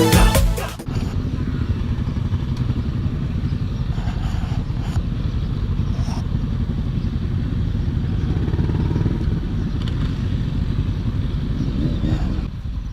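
Music cuts off under a second in. After that, a motorcycle under way gives a steady low rumble of engine and road noise.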